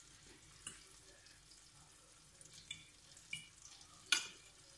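A metal fork clinks against a glass dish of milk four times, the loudest about four seconds in, over a faint sizzle of bread frying in a pan.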